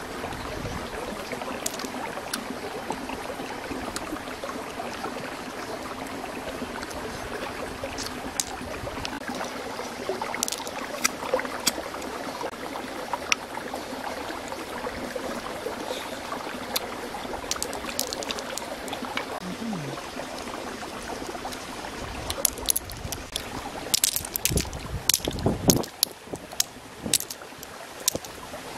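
Cooked cockle shells clicking and cracking as they are pried open and handled by hand, the clicks bunching more thickly near the end, over a steady rushing background noise.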